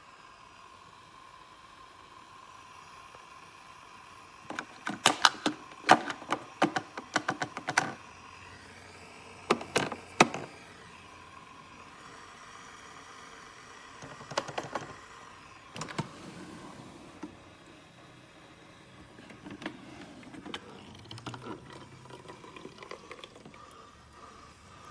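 Bursts of sharp clicking and clattering from hard objects being handled, in several groups, over a faint steady hum.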